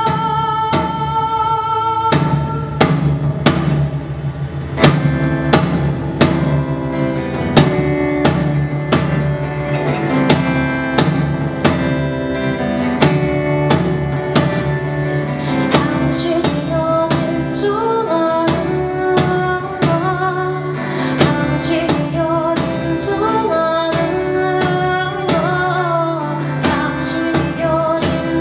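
Live band music: guitars over a drum kit keeping a steady beat, with a bending, wavering lead melody coming in about halfway through.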